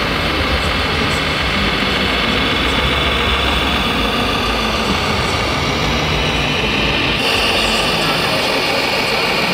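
Steady engine-like drone from a radio-controlled MAN heavy-haulage truck model's simulated diesel sound as it drives, mixed into the dense noise of a busy exhibition hall. The background changes abruptly about seven seconds in.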